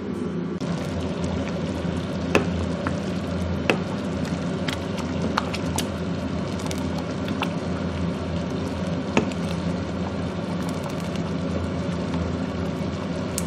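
Thick pumpkin soup in a stainless steel pot being stirred with a spoon, with scattered sharp clicks of the spoon against the pot and a simmering, liquid sound. Under it runs a steady low hum.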